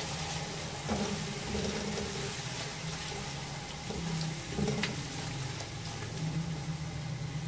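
Hot oil sizzling in an aluminium pot as green onions, ginger, green chillies and ground spices fry, with a spatula stirring and scraping a few times. A low steady hum runs underneath.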